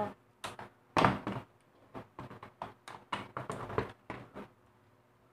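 Irregular clicks and knocks of a mini sewing machine's plastic housing being handled and pried at to get its cover off, the loudest knock about a second in.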